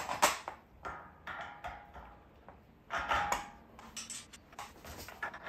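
Metal clinks and clatter of a swivel caster wheel and its nut being handled and fitted onto the post of a Kendon Scorpion motorcycle dolly's steel frame, with a louder, briefly ringing clatter about three seconds in.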